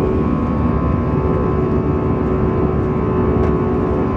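Airbus A321 jet engines and airflow heard inside the passenger cabin in flight after take-off: a steady, loud drone with a constant hum on top.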